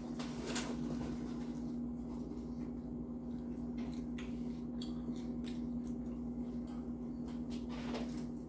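Steady low electrical hum of room tone, with scattered faint clicks, knocks and rustles of a person moving about and handling things near a shelf.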